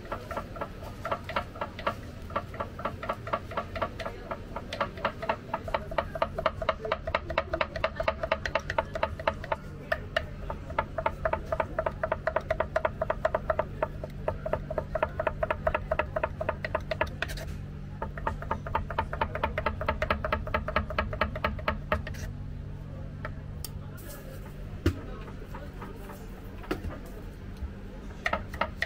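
A large knife chopping cooked lamb head meat on a wooden cutting board in quick, even strokes, several a second. The strokes pause briefly about 17 seconds in, thin out from about 22 seconds, and pick up again near the end.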